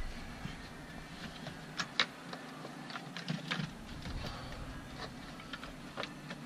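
Scattered plastic clicks, taps and knocks of the fuse panel being handled and pushed back into place under the dashboard of a 2005 Ford F-350, with a few sharper knocks among them.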